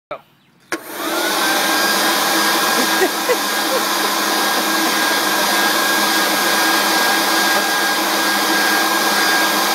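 Corded electric leaf blower switched on just under a second in: its motor whine climbs quickly to full speed, then runs steady with a rush of blowing air.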